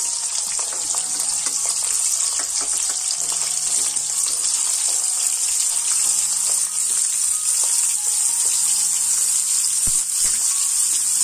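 Cauliflower florets frying in hot oil in a kadhai: a loud, steady sizzle as fresh florets are added by hand.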